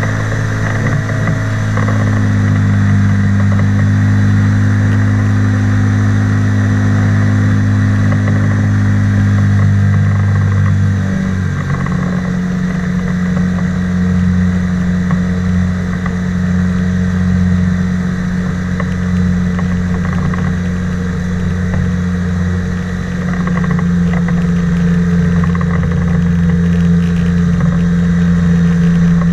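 The engine of a flying inflatable boat running steadily, its pitch shifting about eleven seconds in as the engine speed changes.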